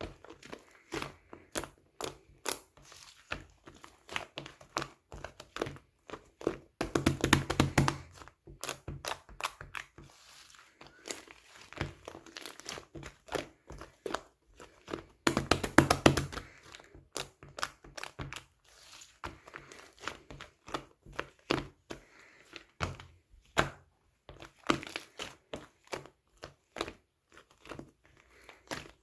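Black slime being squeezed, stretched and pressed by hand, giving a steady run of sharp little clicks and pops. Twice, about seven and about fifteen seconds in, the clicks thicken into a second-long burst of dense, louder crackling.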